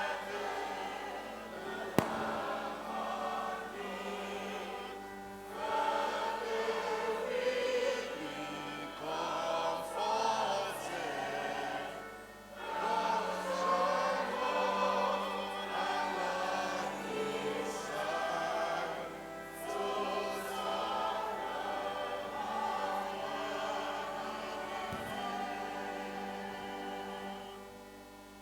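Church choir singing a hymn, line by line with short breaks between phrases, fading out near the end. A single sharp click about two seconds in.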